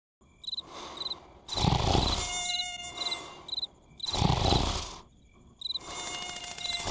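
Cartoon sound-effects track: short, high, insect-like chirps coming in pairs, with two louder whooshing noise bursts, one about a second and a half in and one about four seconds in.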